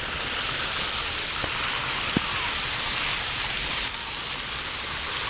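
Splash-pad water jet spraying from a fountain post and spattering close to the camera, a steady rushing hiss of water.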